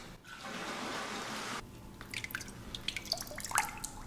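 Metal pitcher scooping liquid from the bottom of a plastic barrel: a swish of moving liquid for about a second and a half, then scattered drips and small splashes.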